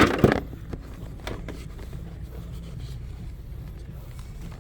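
A short burst of noise at the start, then a steady low background hum with a couple of faint clicks.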